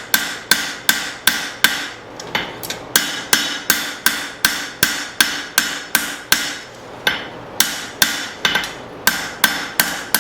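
Hand-hammer blows forging hot leaf-spring steel, pre-forming a chopper blade's profile: a steady rhythm of about three ringing strikes a second, with a few lighter taps about two seconds in and a short pause near seven seconds.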